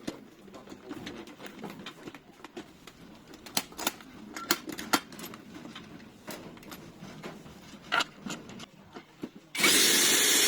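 Scattered small clicks and knocks of metal lock parts being handled and fitted into a door. Near the end a loud, steady rushing noise starts suddenly, lasts about a second and a half, and cuts off abruptly.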